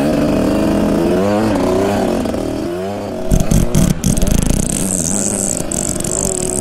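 Two-stroke Husqvarna TE150 dirt bike engine revving up and down at low throttle and sounding rough and burbly, the sign of running rich through the first quarter throttle because of a deformed jet block gasket in its Mikuni TMX 38 carburettor. Several sharp knocks a little past three seconds in.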